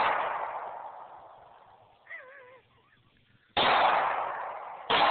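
Glock .40-caliber pistol shots: the ringing tail of one shot fades away, then two more shots follow a little over a second apart, each ringing out and dying away slowly.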